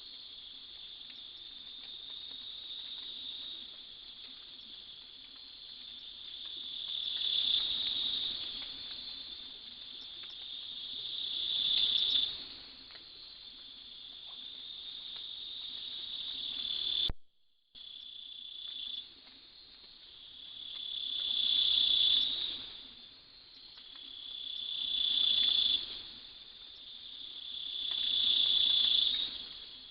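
Night insect chorus: a steady high-pitched trill that repeatedly swells louder over a few seconds and then cuts off sharply, about every three to four seconds in the second half. The sound drops out completely for a moment near the middle.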